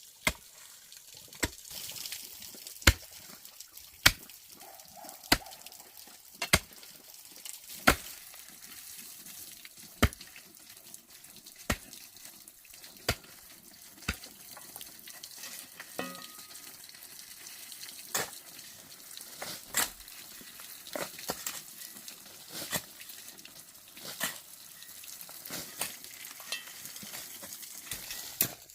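A series of sharp knocks, about one every second or two, over a faint steady hiss.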